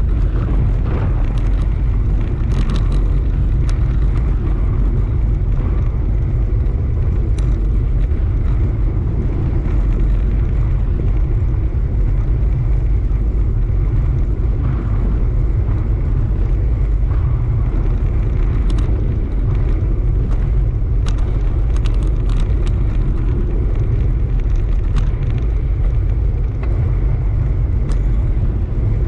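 Wind buffeting the microphone of a camera on a moving bike, a steady low rumble, with a few brief clicks or rattles scattered through it.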